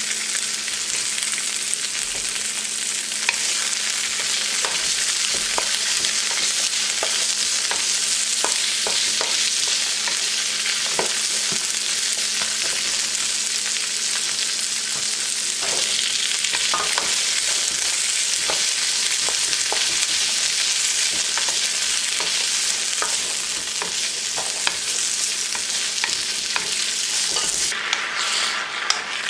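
Chopped vegetables (peppers, beans, okra, onion) sizzling in a hot wok as they are stir-fried, a wooden spatula clicking and scraping against the pan many times. The sizzle thins near the end.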